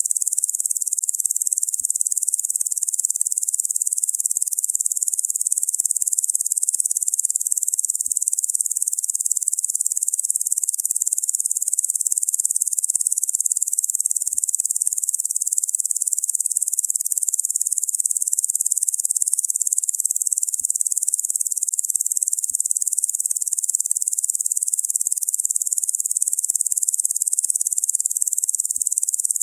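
A chorus of insects making a dense, steady, very high-pitched buzz without pauses or rhythm.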